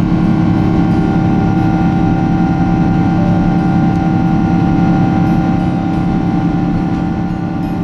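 Boeing 777-200ER cabin noise in the climb after takeoff: the GE90 turbofan engines running steadily, with several steady tones over a constant rush of air. It grows slightly quieter near the end.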